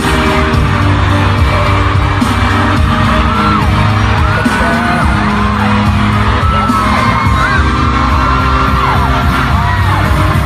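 Loud pop music with a crowd's many high screams and whoops over it.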